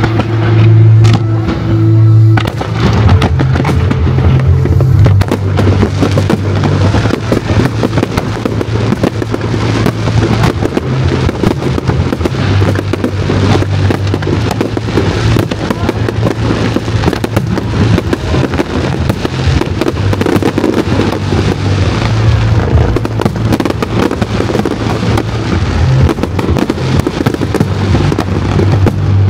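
Fireworks display: a dense, continuous run of rapid crackles and bangs starting about two seconds in, over music with a strong bass line.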